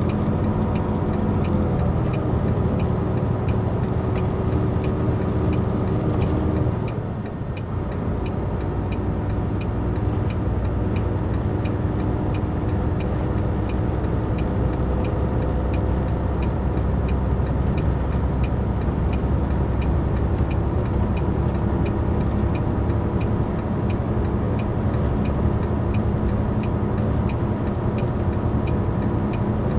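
Tractor-trailer truck's diesel engine running steadily. About seven seconds in the engine note briefly drops and breaks off, then runs on steady.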